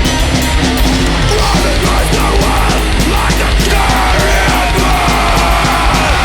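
Crust punk song played by a full band: loud distorted guitars and steadily hit drums and cymbals, with a higher line bending in pitch through the middle.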